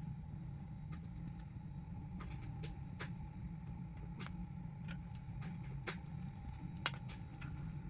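Scattered light clicks and taps over a steady low hum with a faint steady tone, with one sharper click about seven seconds in.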